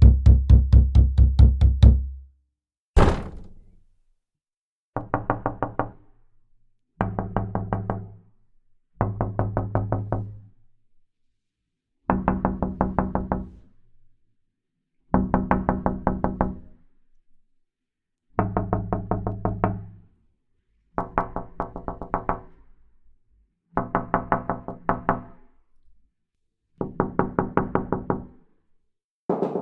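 Knocking on a door, played as a series of separate takes. The first is a heavier pounding, then comes a single hard knock, then about nine bursts of quick, rapid knocks, each lasting a second or two, with short silences between them.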